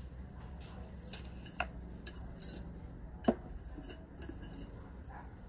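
Glass jars and kitchen utensils being handled on a table: a few light knocks and one sharper clink about three seconds in, over a steady low rumble.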